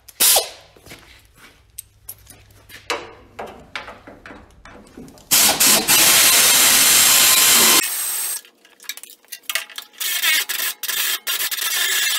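Tools at work on the sheet-metal hood bolts of an old Ford tractor. Scattered metal clicks and scrapes, then about a second past the middle a loud steady noise lasting about two and a half seconds, then more scraping and rattling to the end.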